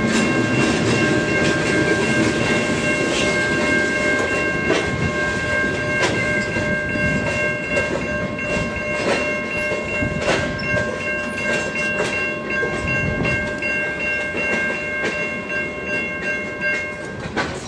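Loaded grain hopper wagons rolling slowly past, wheels clicking irregularly over rail joints. A steady high-pitched squeal from the wagons runs through and stops near the end.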